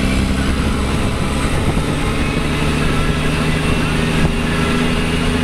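Loaded 1995 Kenworth T800 truck's diesel engine under its Jake brake, a steady low drone heard from the open cab window, its pitch stepping down about a second and a half in.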